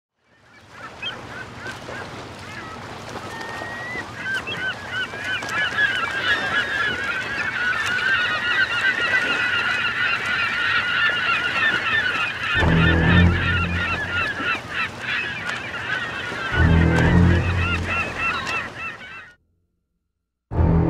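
A flock of birds calling, with many overlapping calls that grow fuller after a few seconds. Two long, deep, low sounds join about two-thirds of the way in, and everything cuts off shortly before the end.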